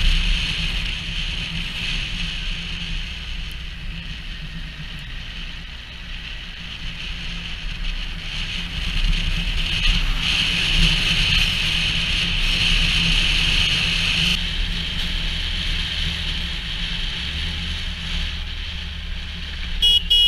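Motorcycle riding along with steady engine drone and wind rush on the microphone, getting louder for a few seconds in the middle. A vehicle horn starts sounding right at the end.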